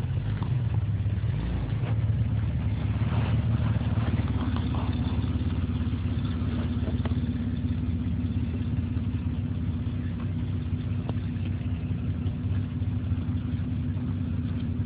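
Jeep engine running at low revs as the Jeep crawls over a large rock: a steady low drone, with a few clicks and crunches from the tyres on rock and gravel in the first half.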